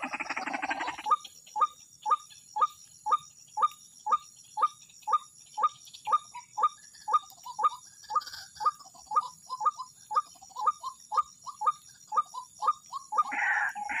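White-breasted waterhen (ruak-ruak) calling a long run of short, evenly repeated notes, about two a second, over a steady high-pitched insect drone. A denser raspy chorus breaks off about a second in, before the notes begin.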